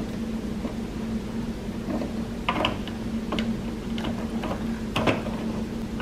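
Plastic ink bottle clicking and knocking against the printer's ink tank fill port as it is turned upside down and pressed into place: several short clicks in the second half, the loudest near the end, over a steady low hum.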